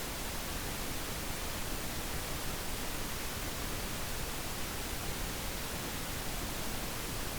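Steady, even hiss of background noise with no distinct sounds: room tone and recording hiss.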